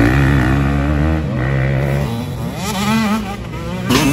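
Motocross dirt bike engine revving hard, its pitch rising and falling repeatedly as the rider works the throttle around the track. The sound changes suddenly near the end.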